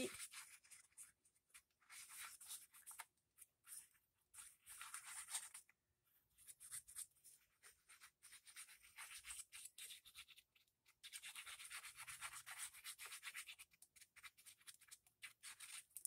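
Faint scratching and rubbing on paper while a paper cutout is glued down, in short spells with a longer stretch over the last few seconds.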